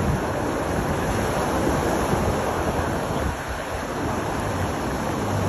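Ocean surf breaking and washing on the shore, with wind rumbling on the microphone.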